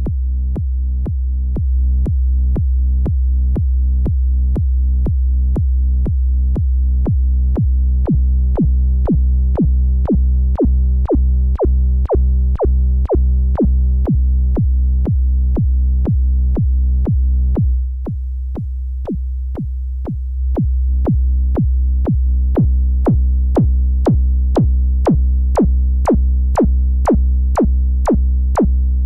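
Behringer Neutron analog synthesizer playing electronic music: a deep, sustained bass with a pitched layer above it, over a steady clicking beat of about two per second. The upper layer drops out about 18 seconds in and returns a couple of seconds later.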